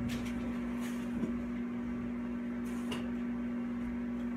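Microwave oven running through its heating cycle with a steady hum, and a few faint knocks.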